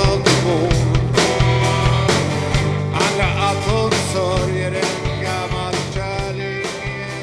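Rock band playing live: drum kit, electric bass, acoustic guitar and keyboards with a steady beat. The music gradually gets quieter toward the end.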